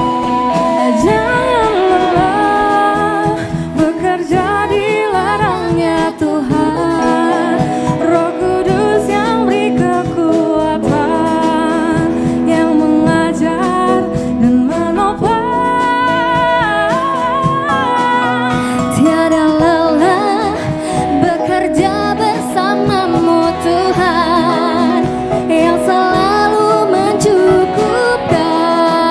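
A live band playing a pop-style song: female singers over a drum kit, electric and acoustic guitars and keyboard.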